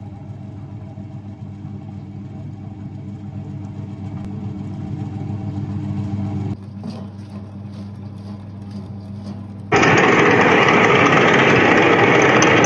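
Mixian (rice noodle) making machine's electric motor running with a steady hum that grows slowly louder. It cuts off about six and a half seconds in, and about three seconds later a loud steady rushing noise starts up.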